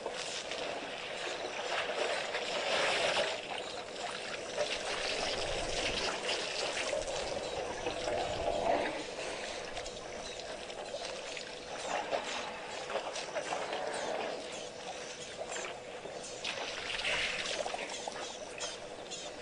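Water sloshing and trickling as elephants drink at a waterhole, in uneven swells with many small splashy clicks, over a steady faint hum.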